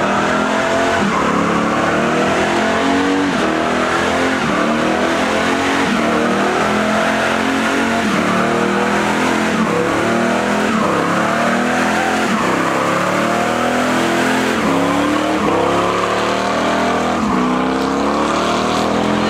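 Red first-generation Chevrolet Camaro doing a burnout: the engine is revved hard again and again, its note climbing and dropping every second or two, over the constant hiss and squeal of the rear tyres spinning on the asphalt.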